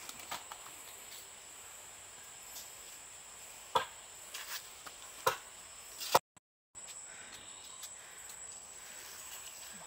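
Steady high-pitched drone of insects, with three sharp knocks between about four and six seconds in. The sound cuts out completely for half a second just after the last knock.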